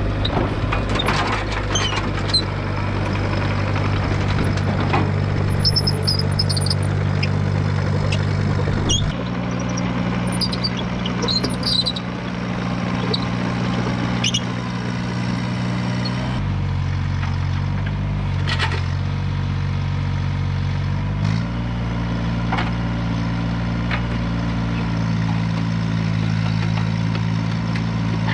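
John Deere mini excavator's diesel engine running, its speed stepping up and down a few times. High squeaks and clicks come from the machine over roughly the first dozen seconds as it tracks off the trailer.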